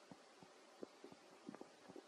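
Near silence: faint background hiss with a few soft, scattered clicks.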